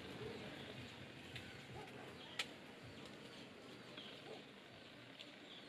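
Faint forest ambience with scattered short bird chirps, and a single sharp click about halfway through.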